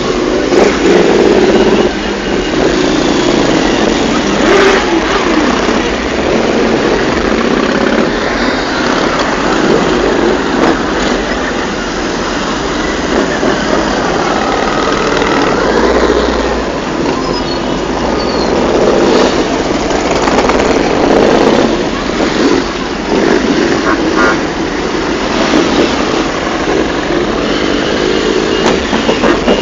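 A procession of motorcycles riding past one after another at low speed, their engines running in a continuous loud mix that swells and eases as each bike goes by.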